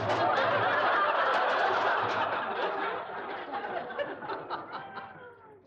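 Studio audience laughing, many voices together at first, then thinning to a few scattered laughs and fading out near the end.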